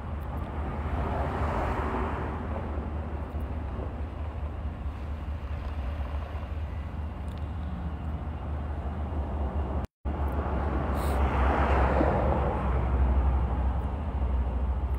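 Road traffic over a steady low rumble, with two vehicles passing: one a second or two in and a louder one about twelve seconds in. The sound cuts out for a moment just before the second pass.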